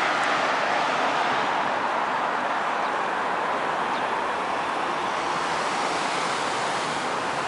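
Steady hiss of car traffic on a multi-lane road, an even wash of tyre noise with no single vehicle standing out.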